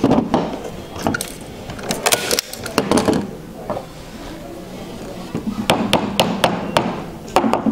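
Small hammer tapping fasteners through linen canvas into the edge of a wooden stretcher frame: a few taps about two and three seconds in, then a quick run of about half a dozen taps near the end.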